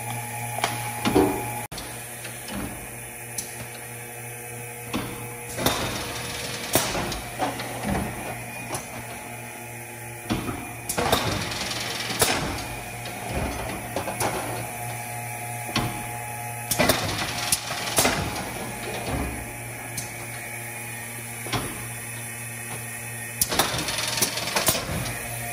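Nordale end-load cartoner running in intermittent motion: its mechanism clacks and knocks at uneven intervals as cartons are indexed, erected and closed, over a steady motor hum.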